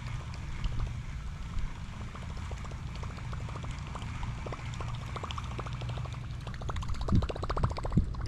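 Water gurgling and lapping against a small boat, over a steady low rumble, with scattered small clicks and a brief run of rapid clicking near the end.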